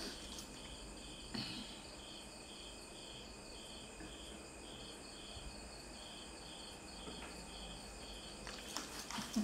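Faint, steady chirping of an insect, high-pitched pulses about two a second. There is one soft click about a second and a half in.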